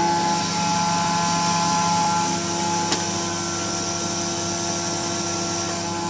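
Industrial carpet-drying fans (air movers) and dehumidifiers running together, a steady rushing blow with a constant multi-tone machine hum, drying out a water-soaked basement carpet.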